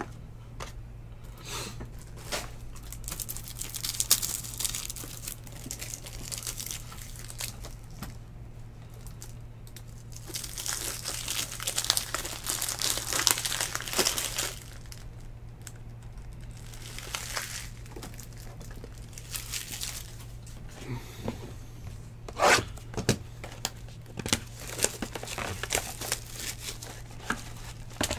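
Foil trading-card pack wrappers crinkling and being torn open, in long rustling stretches about a third of the way in and again past the middle. Near the end comes a run of sharp clicks and taps from handling the cards and packaging.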